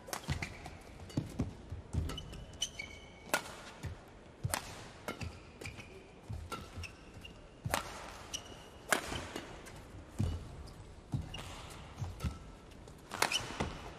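Badminton rally: rackets crack against the shuttlecock about once every one to one and a half seconds, with short high shoe squeaks and footfalls on the court between shots.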